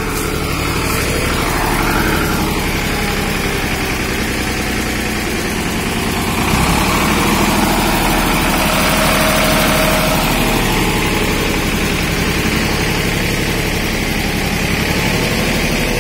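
Escorts 355 DI tractor's diesel engine running steadily, getting a little louder about six and a half seconds in.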